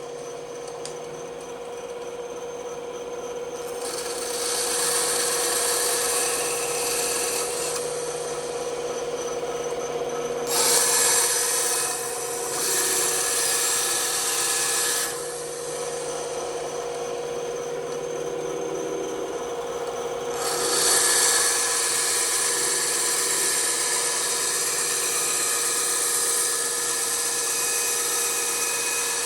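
Bandsaw running with a steady hum while its blade cuts through wood, the cutting hiss coming and going as the workpiece is fed. The hiss comes in about four seconds in, drops back around fifteen seconds and returns strongly about twenty seconds in.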